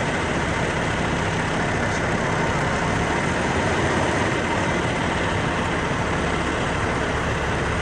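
Semi truck's diesel engine running steadily at low speed as the rig reverses a trailer into a loading dock.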